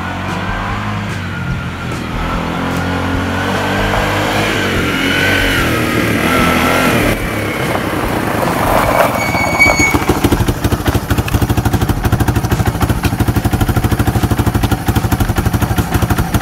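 Kawasaki Bayou KLF300 ATV's single-cylinder four-stroke engine running as it is ridden, its pitch rising and falling with the throttle. In the second half it settles into a steady, rapid putter close by.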